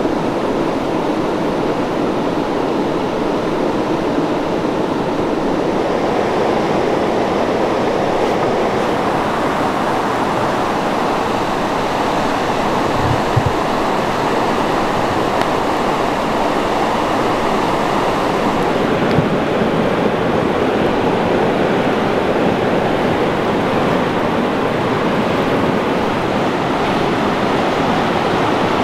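Steady rushing of flowing water from a mountain stream, with a couple of faint knocks in the middle.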